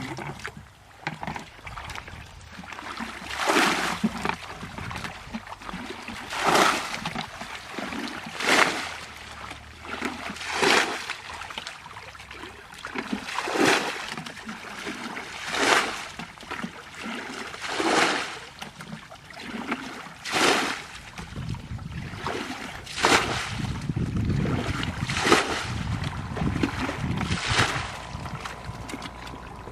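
Water splashing in a slow, even rhythm, about one splash every two seconds. A low rumble joins about two-thirds of the way through.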